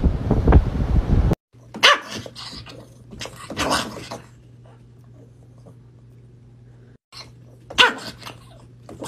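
Wind buffeting the microphone for the first second or so, then a cut to a small dog barking in short sharp bursts, with a gap of a few seconds in the middle. A faint steady hum runs behind the barks.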